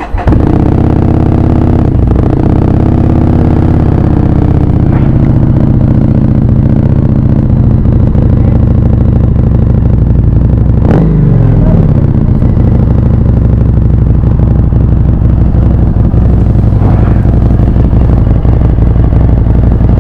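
Harley-Davidson Street 750's V-twin engine idling loud and steady through an aftermarket, non-stock exhaust, with one quick throttle blip about halfway through.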